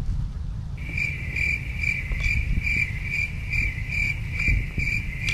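A cricket chirping steadily, a high-pitched pulse about twice a second, starting about a second in, over a low rumble of wind on the microphone.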